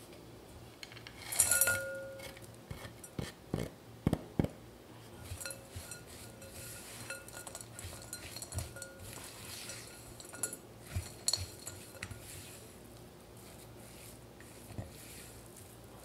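Silicone spatula mixing crumbly cookie dough and chopped chocolate in a glass bowl: scraping and pressing, with scattered knocks and clinks against the glass. About one and a half seconds in, the loudest clink sets the bowl ringing briefly.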